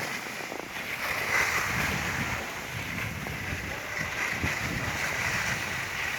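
Skis sliding and scraping over packed snow during a downhill run, a steady hiss with uneven low rumble, mixed with wind buffeting the microphone.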